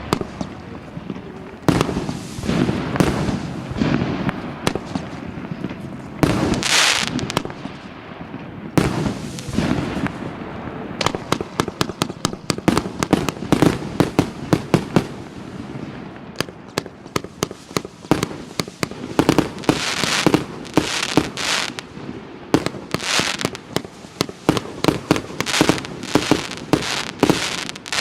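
A 228-shot fireworks cake of 30–50 mm calibre firing shot after shot, with sharp launch reports and crackling bursts. From about eleven seconds in the shots come rapidly, several a second.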